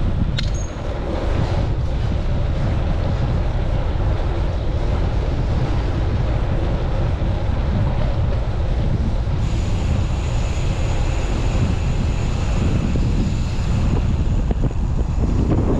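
Strong gusting wind buffeting a chest-mounted camera's microphone on a moving bicycle, a steady, dense low rumble. A brief click comes just after the start, and a faint high whine joins about nine seconds in.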